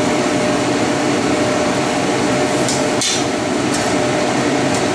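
Tomatoes and luncheon meat sizzling as they stir-fry in a wok, stirred with a metal ladle. Several sharp clinks of the ladle against the wok in the second half, the loudest about three seconds in.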